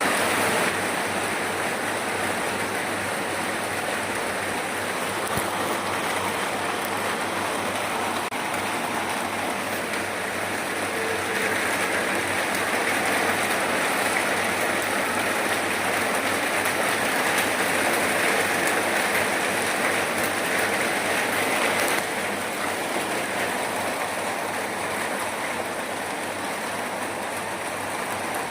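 Steady rain falling, a dense even hiss. It grows heavier about twelve seconds in and drops back suddenly about two-thirds of the way through.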